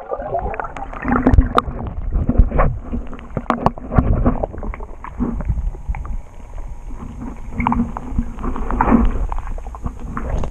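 Heard from underwater in a swimming pool: muffled sloshing and gurgling of water stirred by a swimmer's movements, with low rumbles and scattered short knocks.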